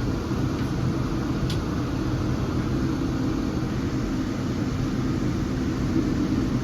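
Steady, low, even engine and airflow noise of a passenger airliner heard inside the cabin.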